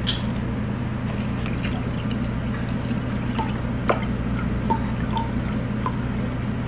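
Canned juice poured from an aluminium can into a glass tumbler in a thin stream, over a steady low hum with a few small ticks and clinks.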